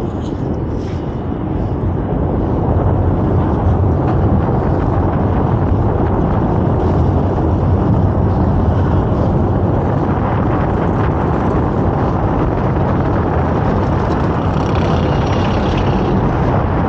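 Kondaa, an Intamin mega roller coaster, climbing its lift hill: a steady, loud mechanical rumble from the train and lift that builds a little at first and then holds level.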